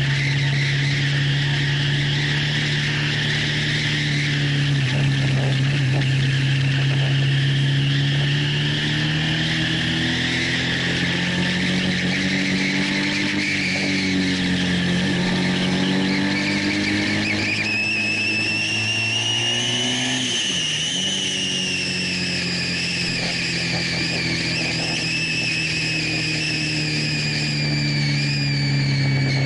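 Honda VFR1200's V4 engine heard from an onboard camera at track speed, its revs rising and falling through the corners, over steady wind rush. The revs dip briefly about 20 seconds in, and a high whine rises and falls from about 18 seconds on.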